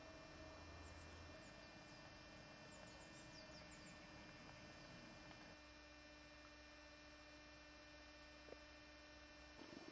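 Near silence: a faint steady electrical hum, with a few faint short high chirps in the first few seconds.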